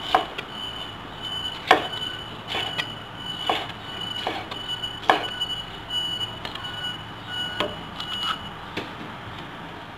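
Chinese cleaver chopping bell pepper on a wooden cutting board: several sharp knocks at an uneven pace. Behind them a steady high-pitched tone stops about eight seconds in.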